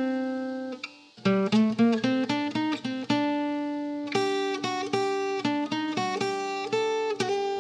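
Background instrumental music of plucked strings, picked notes that ring and fade one after another, with a brief break about a second in.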